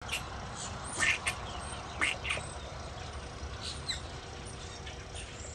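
Ducks quacking: a few short calls in pairs, about one second in, about two seconds in, and again near four seconds, over a low steady background noise.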